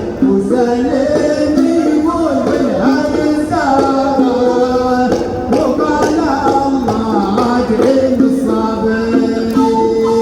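Music: an Arabic song, a sung melody of held notes that step and glide in pitch, with instrumental accompaniment.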